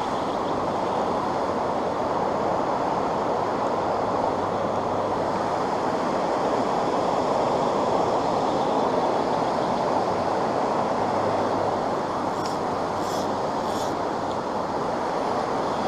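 Swift creek current rushing steadily past at close range, an even, unbroken water noise.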